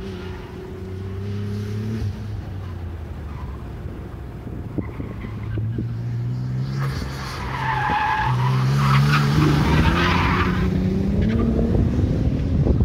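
Nissan Z sports car lapping hard, its engine note falling and rising with the throttle. About two-thirds of the way through, the tyres squeal for a few seconds through a corner while the engine climbs in pitch as it accelerates.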